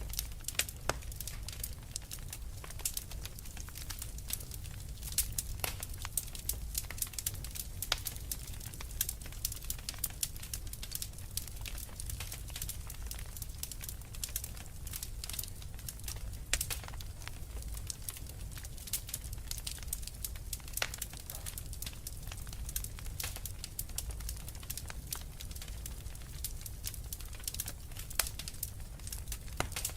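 Fireplace fire crackling: many irregular sharp pops and snaps over a steady low rumble.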